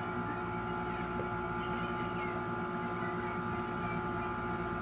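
A steady machine hum: several constant tones over a low rumble, unchanging throughout.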